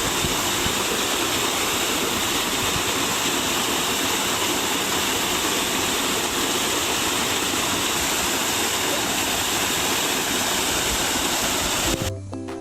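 Rushing water of a mountain stream pouring over waterfalls, a steady, dense rush; it cuts off suddenly near the end as music begins.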